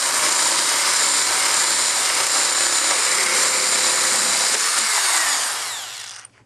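Electric drill running a hole-cutting bit through PVC pipe, a steady whir with the rasp of the bit cutting plastic. About five seconds in it winds down and stops, the hole cut cleanly through.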